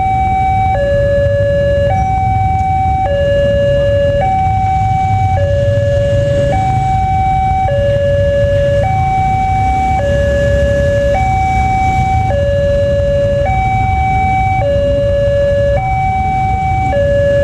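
Railway level-crossing warning siren sounding a steady two-tone hi-lo alarm, switching between a higher and a lower tone about every second, with a low rumble beneath. It signals that a train is approaching and the crossing is closed.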